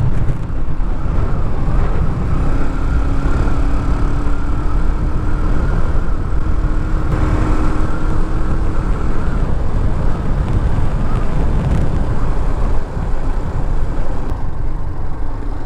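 Motorcycle at road speed: wind rushing steadily over the on-board camera microphone, with the engine's drone faintly underneath and its note climbing slowly a few seconds in.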